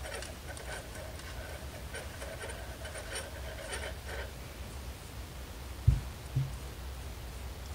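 Faint rustling and rubbing of hands working stuffing into a crocheted plush piece, with two dull low thumps close together about six seconds in.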